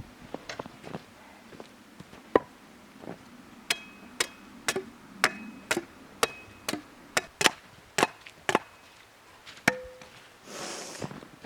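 Wood being chopped: about fifteen sharp, irregular blows, some with a brief ring after the hit.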